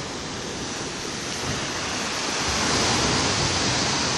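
Ocean swell breaking below a seawall: a steady rushing hiss of surf that grows a little louder about halfway through.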